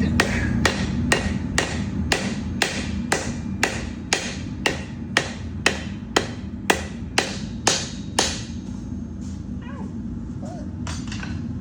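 Hand hammer striking hot 52100 steel on an anvil while forging a knife blade: about seventeen evenly spaced ringing blows, roughly two a second, stopping after about eight seconds. A steady low hum runs underneath.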